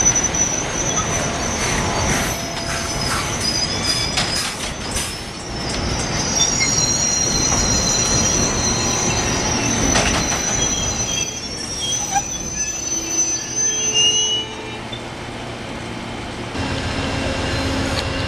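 Amtrak passenger train rolling slowly past the platform, its steel wheels squealing with a steady high-pitched note over the rumble of the cars. The squeal stops about three quarters of the way through, leaving a lower rumble and, near the end, a steady low hum.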